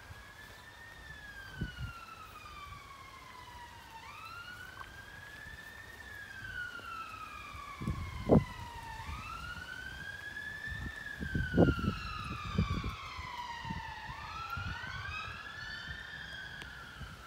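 Emergency-vehicle siren wailing, each slow rise and fall taking about five seconds, with a second wail overlapping it at times. A few low thumps on the microphone stand out above it, the loudest about eight and eleven seconds in.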